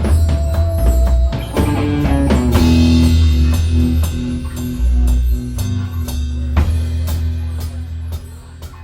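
Rock band playing live: drum kit hits over a bass line, with a guitar holding a long note from about two and a half seconds in. The music grows quieter near the end.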